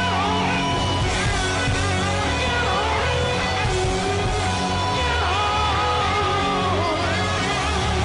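Live hard rock band playing loudly: electric guitars, bass and drums, with a gliding, bending lead line over a steady bass pulse.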